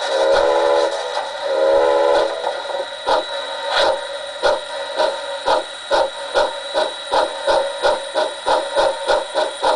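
Model steam locomotive sound from a DCC sound decoder played through a small 28 mm speaker: two whistle blasts, then rhythmic chuffing that speeds up as the engine pulls away.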